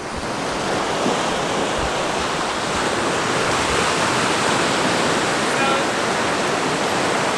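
Small waves washing onto the shore, a steady rushing hiss.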